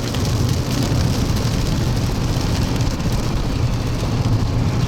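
Car driving, heard from inside the cabin: a steady low rumble of engine and road noise with an even hiss over it.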